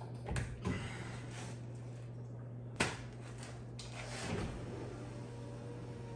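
A few light knocks and clicks, with one sharp click about three seconds in, over a steady low hum.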